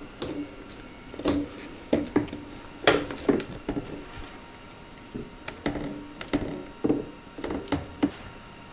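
Metal parts and hand tools clanking and knocking at the top mount of a Suzuki DR650's rear shock while it is being worked loose: about fifteen irregular, sharp knocks and clinks, each with a short ring.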